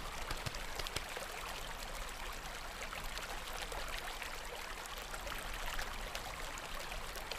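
A steady, even rushing noise with faint tiny ticks in it, like a trickling stream, running as a continuous background sound bed.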